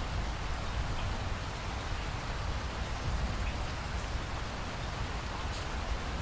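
Steady rain falling, with scattered faint drop ticks over an even hiss and a steady low rumble underneath.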